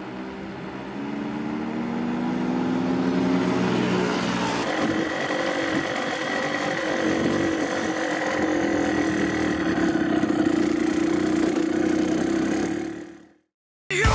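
Motorcycle engine revving up, its pitch climbing and growing louder over the first few seconds, then running at a steady high pitch before fading out near the end.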